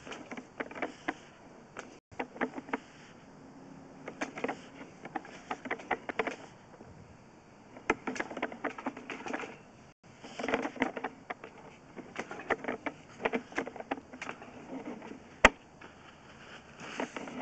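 Bursts of rapid clicking and rattling from a sewer inspection camera being pushed along a sewer line, with quieter pauses between the bursts.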